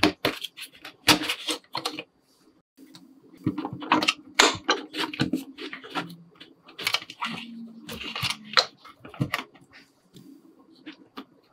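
Hands working a plastic cow-shaped toy, pressing soft pink putty through its mouth: irregular plastic clicks, taps and rubbing.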